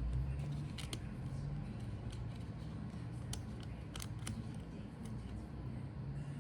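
Scattered small clicks and taps from handling the parts of a Dell Inspiron laptop being disassembled, over a steady low hum.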